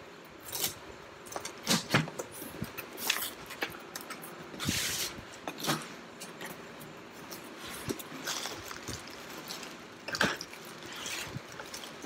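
Cardboard shipping box being opened and unpacked by hand: scattered taps, knocks and rustles, with a longer scratchy rasp about five seconds in as the box is opened. Near the end, plastic air-pillow packing crinkles as it is lifted out.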